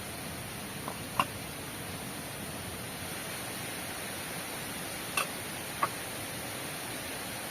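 Steady hiss of heavy rain, with a few short sharp clicks: one about a second in and two more around five to six seconds.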